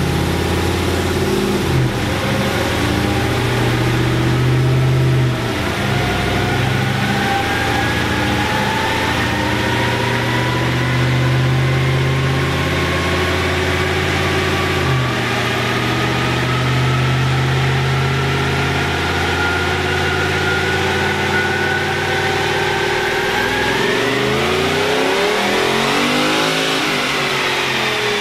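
2015 Ram 1500's 5.7-litre Hemi V8, with a Stage 2 cam and long-tube headers, making a full pull on a chassis dyno in fourth gear: the engine note climbs slowly and steadily for most of the run, rises faster near the end, then falls away as the run ends. The pull runs nice and clean, with no shift or stumble.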